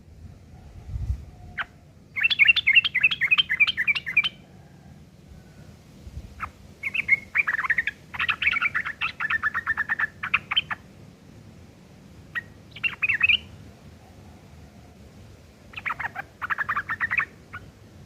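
A yellow-vented bulbul (trucuk) sings in four bursts of rapid, rough chattering notes with short pauses between them. Its song is filled with imitated long-tailed shrike (cendet) phrases.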